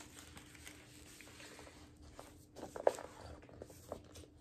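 A vinyl record being slid out of its paper inner sleeve and handled: soft paper rustling with a short sharp click about three seconds in.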